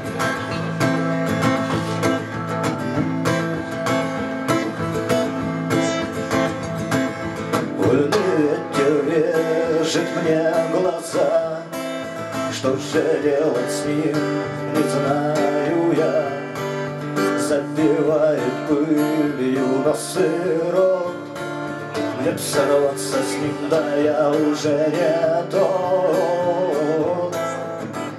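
Acoustic guitar strummed as a song accompaniment, played live. About eight seconds in, a wordless vocal melody joins it.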